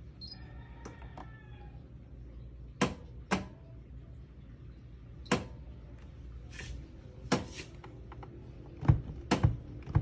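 Electrolux front-loading washing machine: a brief electronic chime just after the start, then a series of sharp plastic clicks and knocks from the panel buttons being pressed and the door handle being tugged, the loudest two near the end. The door is stuck locked, shown by error E42.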